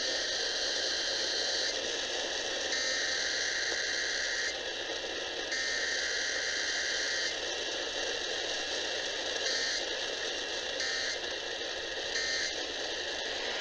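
Radio static: a steady hiss from a receiver on a weak or noisy signal, its tone and level shifting in steps every second or two.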